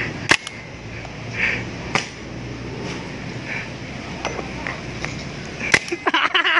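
Paintball marker firing: single sharp pops spaced a second or more apart, then a quick run of shots near the end.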